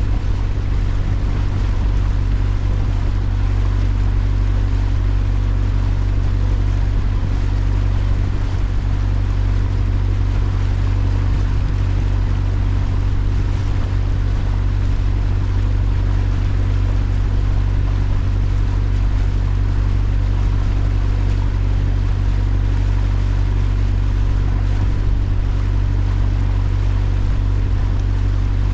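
Water taxi's engine running at a steady cruise, a constant low hum with steady overtones, heard from on board.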